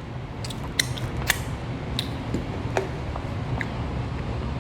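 Scattered light clicks and taps of tableware and food being handled at a meal, some with a brief ring, over a steady low hum.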